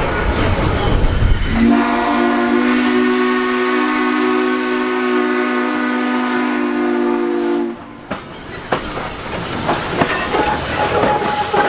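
Steam locomotive No. 1309, a 2-6-6-2 Mallet, blowing one long blast on its steam whistle: a chord of several low tones that starts about two seconds in and cuts off sharply about six seconds later. Before the blast there is a low rumble from the approaching engine. After it come clanking running gear and a hiss of steam as the locomotive passes close by.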